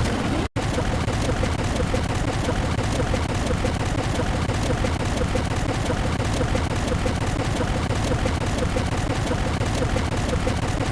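A dense wall of many overlapping sound effects playing at once, loud and noisy, with a fast pulsing running through it. It cuts out to silence very briefly about half a second in.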